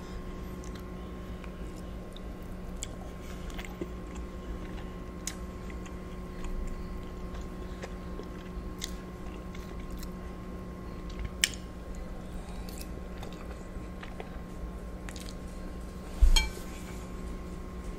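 Close-miked chewing and wet mouth sounds of someone eating soft lobster ravioli in butter sauce, with many small clicks, a sharp click about eleven seconds in and a louder brief knock near the end. A steady low hum runs underneath.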